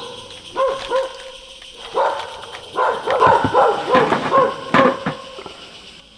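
An animal calling in a series of short, pitched calls, several a second in the middle, fading out near the end.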